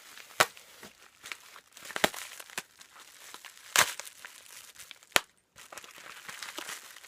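Packaging crinkling and rustling as items are handled, with four sharp knocks spread through it.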